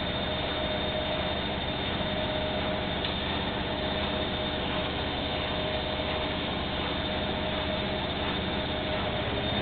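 Bauknecht washing machine on its 1400 rpm spin cycle: a steady, even rushing hum from the spinning drum, with a steady high whine running through it.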